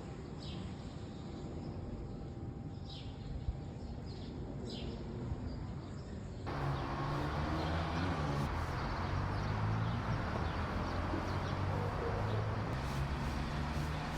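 Quiet outdoor ambience with a few short, high bird chirps. About six seconds in it cuts abruptly to a louder, steady background noise with a low hum.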